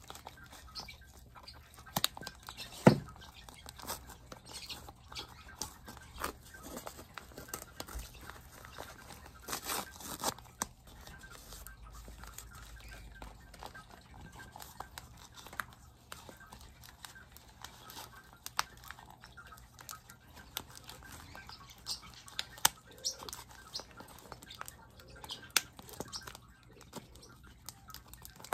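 Paper packing wrapping, kraft paper and tissue, rustling and crinkling as it is handled and pulled away, with irregular small crackles throughout and one louder knock about three seconds in.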